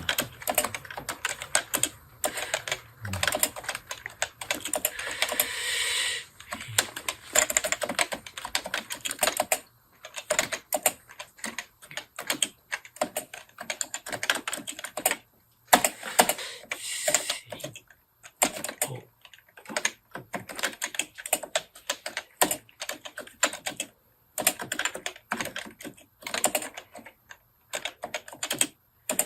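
Fast typing on a computer keyboard: dense runs of key clicks broken by brief pauses of about a second. Japanese kana is being typed in the thumb-shift (NICOLA) layout, thumb keys struck together with the character keys.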